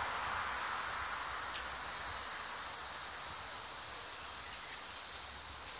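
A steady, high-pitched insect chorus buzzing in the trees, with leaves rustling and a low rumble underneath.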